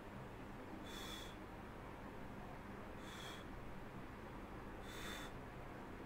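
A man breathing close to the microphone: three short, hissing exhales about two seconds apart, over a faint steady hum.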